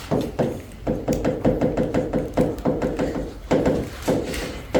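Writing on a classroom board: a quick run of taps and scratching strokes, several a second.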